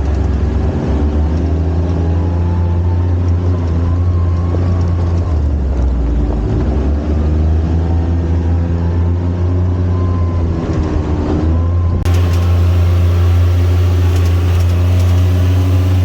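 UTV engine running under way, its pitch rising and falling as the vehicle speeds up and slows along the trail.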